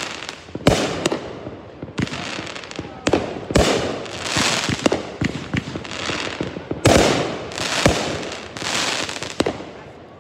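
Aerial fireworks going off in rapid succession: sharp launch thumps and bursting reports about every second, several followed by a spread of crackling. The barrage thins out and fades near the end.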